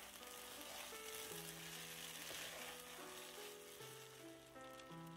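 Rice simmering in its cooking liquid in a wide pan, bubbling and sizzling as a wooden spoon stirs through it. The sizzle swells in the middle. Soft background music plays, its notes coming forward near the end.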